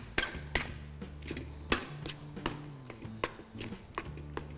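Metal ladle stirring thick pongal in a stainless steel kadai, knocking and scraping against the pan in irregular clanks about twice a second, over faint background music with a low bass line.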